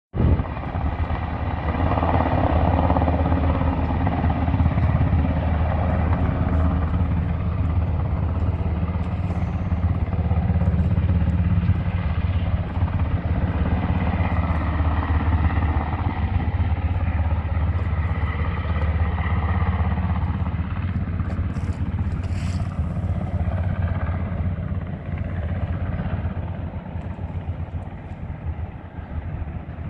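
Firefighting helicopter running steadily and loudly close by during an aerial water pickup, easing off somewhat over the last few seconds. A few sharp knocks sound about 22 seconds in.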